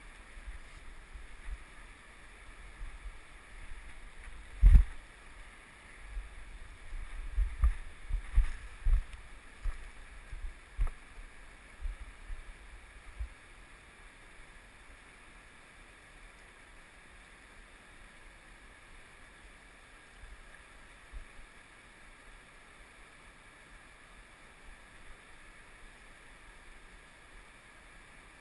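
Steady rush of a fast-flowing river, with a run of low thumps on the microphone from about five to thirteen seconds in, the loudest near five seconds.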